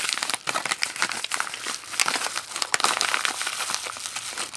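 Plastic packaging crinkling and crackling steadily as a package of bullion coins is handled and opened, with many small sharp clicks.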